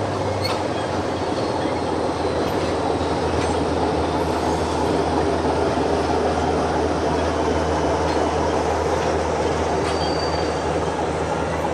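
Covered hopper freight wagons rolling slowly past during shunting: a steady rumble of wheels on rail over the constant drone of a diesel shunting locomotive's engine, with a brief faint wheel squeal near the end.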